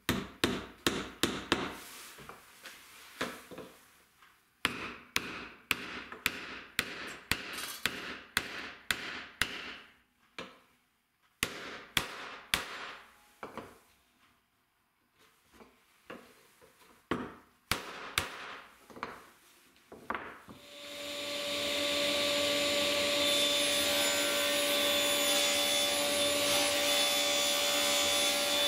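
Quick light hammer taps driving a tight-fitting metal sleeve into a 10 mm hole in a plywood board: a long run of strikes, a couple a second, broken by short pauses. About twenty seconds in, a table saw starts up and runs steadily.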